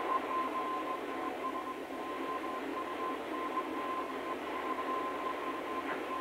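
Steady hiss with a thin, steady high tone held through it.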